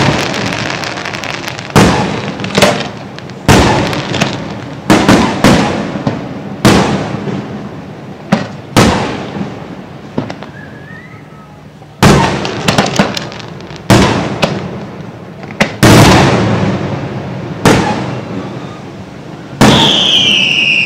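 Fireworks display: aerial shells bursting one after another, each sharp bang trailing off with echo and crackle, roughly one to two seconds apart. Near the end a high whistle starts and slowly falls in pitch.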